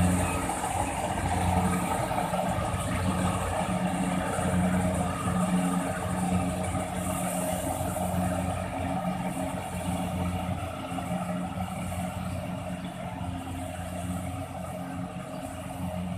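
Rice combine harvester's engine and machinery running with a steady, slightly pulsing drone, getting a little quieter toward the end.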